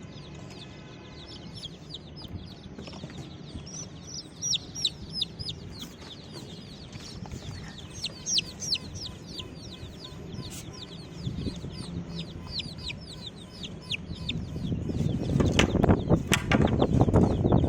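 Baby chicks peeping continuously: a rapid run of short, high chirps, each falling in pitch. Near the end a louder rustling, scuffling noise joins in.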